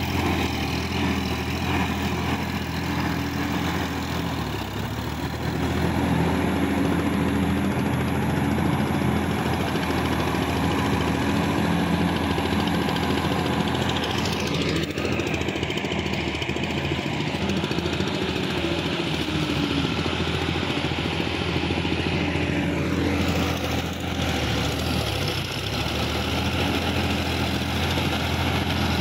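Sonalika DI 50 RX tractor's diesel engine running steadily under load, with the splashing churn of muddy water as it works an implement through a flooded paddy field.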